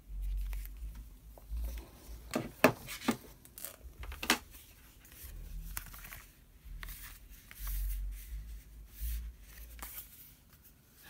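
Rustling and handling of laptop box packaging and accessories, with a few sharp clicks and taps, the loudest cluster a couple of seconds in, as items are lifted out of the box.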